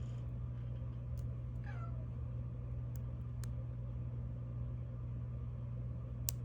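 A cat gives one short meow that falls in pitch, about a second and a half in, over a steady low hum. A few sharp metallic clicks from the pick and tension wrench working the padlock, the loudest near the end.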